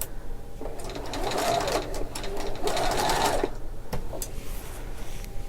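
Sewing machine stitching a short run through fabric. It starts about a second in and stops after a few seconds, followed by a single click.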